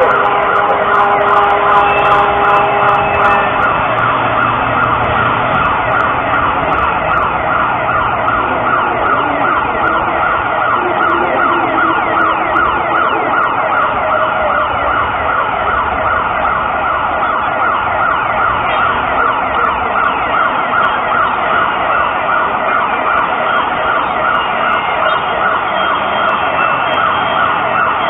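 Mexico City's seismic alert (SASMEX) siren wailing over the public loudspeakers, a steady unbroken siren warning that an earthquake is on its way.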